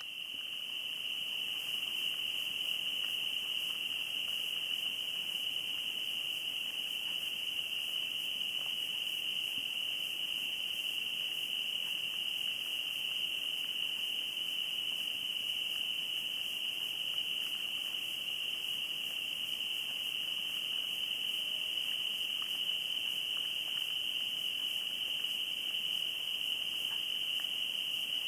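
Crickets chirping in a steady, unbroken high-pitched night chorus.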